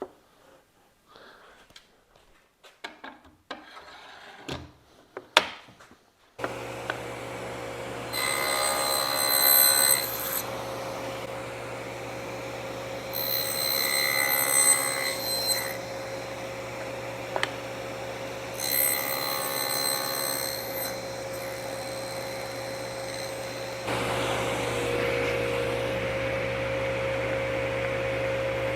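A few seconds of light knocks and clicks from handling wood, then a table saw running steadily. Three times its sound rises into a high ringing whine for about two seconds as the blade cuts tenons on the ends of cabinet-door rails.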